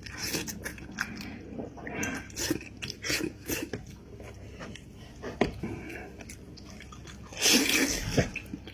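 Close-up mukbang eating sounds: irregular wet chewing, biting and smacking while eating a goat head with raw shallots, with a louder burst about seven and a half seconds in.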